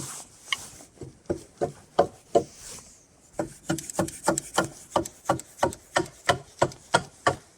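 Repeated blows on wood, about three a second, each with a short hollow ring, pausing briefly about three seconds in and then going on steadily.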